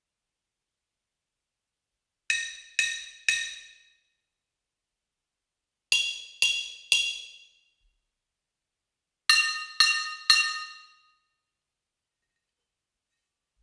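A brake drum played as a percussion instrument, struck three times in quick succession, three times over, each strike a bright metallic clang ringing with several high overtones and fading within about a second.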